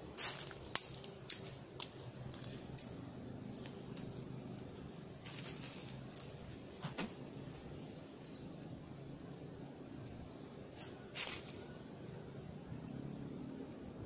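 Scattered crackles and snaps of twigs and brush being handled in dense undergrowth, thickest in the first few seconds, with a louder rustle around the middle and another near the end. A steady, faint high-pitched drone runs underneath.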